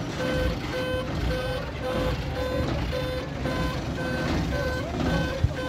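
A truck's reversing beeper sounding evenly, about two beeps a second, over the steady rumble of a truck engine running.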